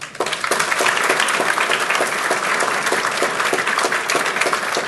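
Audience applauding: dense handclapping that breaks out just after the start and carries on throughout.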